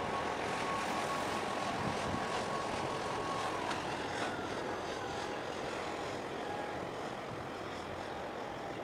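Steady distant engine drone over a wash of outdoor noise, with a thin high whine that fades out about three and a half seconds in.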